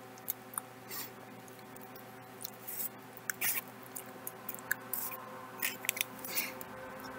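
Close-up chewing of a Subway sandwich: irregular wet smacks and clicks of the mouth, a dozen or so, some sharp and loud.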